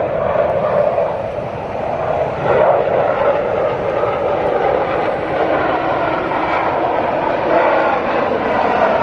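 Military jet aircraft flying low overhead: a steady jet engine roar with a whine that shifts in pitch as they pass, swelling about two and a half seconds in and again near the end.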